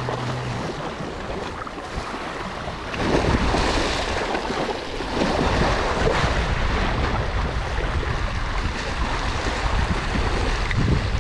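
Sea waves washing against a rocky shore, with wind buffeting the microphone; the wash grows louder about three seconds in.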